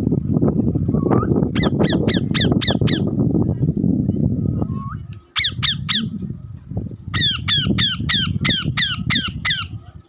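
Green ringneck (rose-ringed) parakeets giving shrill, downward-sliding squawks in three quick runs of four to nine calls, about four or five a second. The calls sit over a low rumbling noise that is loudest in the first half.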